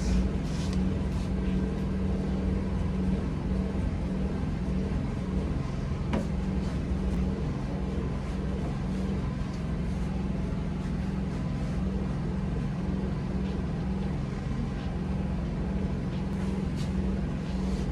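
A steady low mechanical drone that holds one pitch without rising or falling, with one faint click about six seconds in.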